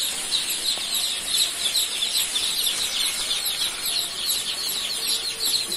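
A large flock of joper chicks peeping continuously, many high-pitched, downward-sliding cheeps overlapping into a dense chorus.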